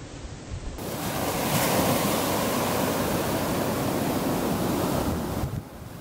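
Black Sea surf breaking and washing up a coal-strewn beach: a steady rush of foaming waves. It grows louder about a second in and drops suddenly near the end.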